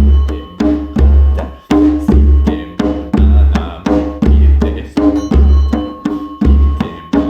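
Deep hand drum struck in a slightly uneven rhythm of about two beats a second. Each stroke has a pitched ring that dies away, and a faint steady high tone sounds underneath.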